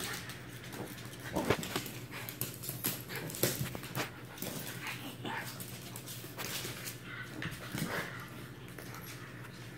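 A Lhasa Apso and a Shih Tzu play-wrestling: short dog vocal sounds mixed with scuffling and paws scrabbling on a wooden parquet floor. Sharp clicks and knocks come at irregular moments, the loudest about one and a half and three and a half seconds in.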